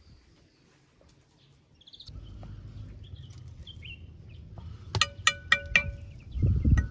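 Faint bird chirps at first, then a wooden spoon knocks four quick times against an aluminium saucepan of melting butter, each knock ringing briefly. A loud low thump comes near the end.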